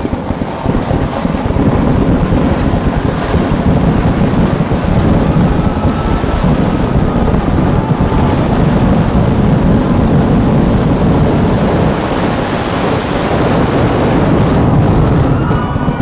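Kerala temple-festival fireworks (vedikattu) going off in a dense, unbroken barrage, the individual blasts running together into continuous loud crackling with a heavy low boom underneath.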